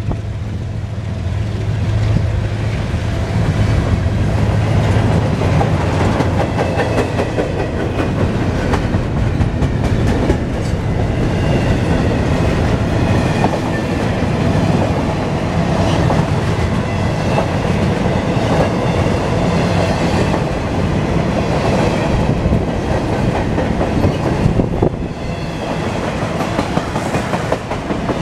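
Freight train cars rolling past at close range: a steady rumble of steel wheels on rail with a continuous clickety-clack over the rail joints.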